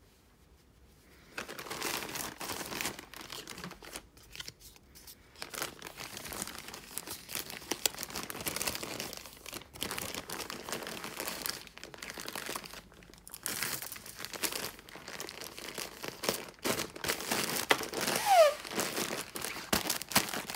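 Plastic bags being handled and crinkled: irregular rustling that starts about a second in and comes in bouts, loudest near the end, with a short falling squeak there.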